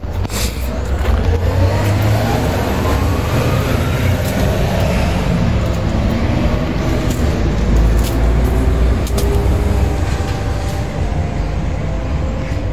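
Deep, steady rumble of a motor vehicle's engine running close by, its pitch rising for a couple of seconds near the start as it speeds up.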